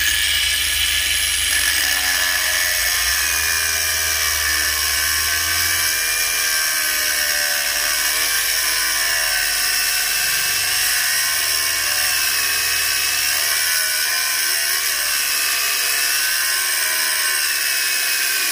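Cordless angle grinder running at full speed with a cut-off disc, cutting into a steel plate: a steady high whine whose pitch wavers slightly as the disc bites.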